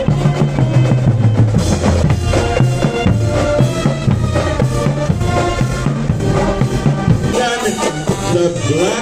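Marching band playing live: brass with sousaphones carrying a repeating bass line over bass drum and snare beats. Near the end the low brass drops out and higher wavering tones take over.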